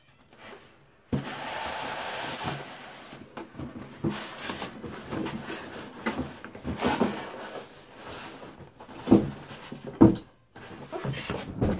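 A white box lid being worked and slid off its box, with scraping and rubbing from about a second in, then rustling and two sharp knocks about nine and ten seconds in.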